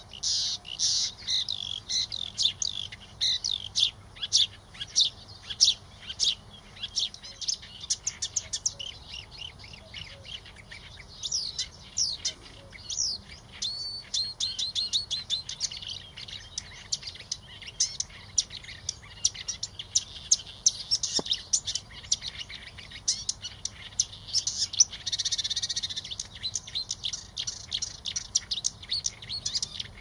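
Reed-type (Acrocephalus) warbler singing: a long, fast, unbroken run of varied scratchy chattering and whistled notes.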